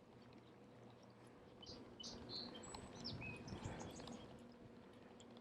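Faint scattered bird chirps and a short whistle over a quiet background, with a soft low rush swelling up about three seconds in and fading.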